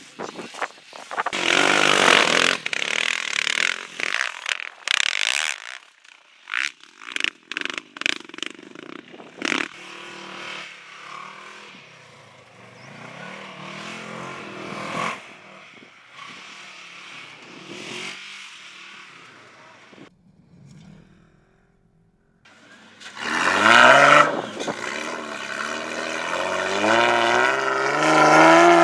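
Off-road racing vehicles' engines running in the sand dunes, the pitch rising and falling with the throttle. After a short near-silent gap about three-quarters of the way through, a rally truck's engine revs hard, its pitch climbing as it drives up a dune.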